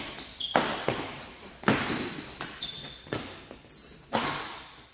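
Badminton rackets striking a shuttlecock in a fast doubles rally: a sharp crack about once a second, echoing in a large hall, with short high squeaks of shoes on the court between hits.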